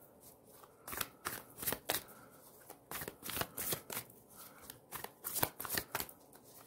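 A deck of oracle cards shuffled overhand by hand: a run of short papery card slaps and swishes, a few each second, in an uneven rhythm.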